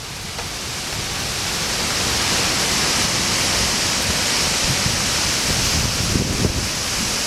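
Severe squall-line wind blowing hard, a steady rush of noise that swells over the first two seconds and then holds, with low buffeting underneath.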